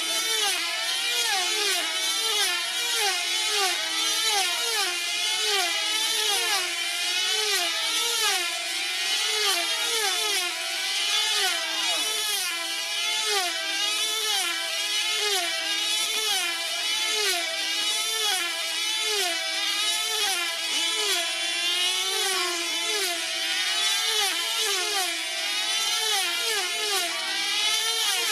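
Several F2C team-race control-line model aircraft flying together at full throttle, each with a small 2.5 cc diesel engine. Their high engine whines overlap and rise and fall over and over as the models sweep round the circle, with no let-up.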